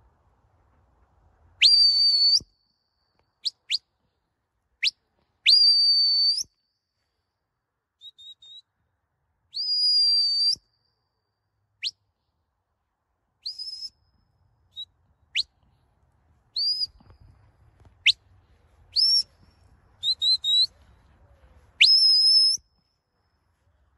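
A sheepdog handler's whistle commands to a working dog: a string of sharp, high whistle blasts, some held for about a second after a quick upward sweep, others short rising flicks, one pair near the end given in quick succession.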